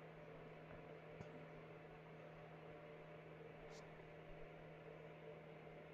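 Near silence: a faint steady electrical hum of room tone, with a faint click about a second in and a brief soft hiss a little past halfway.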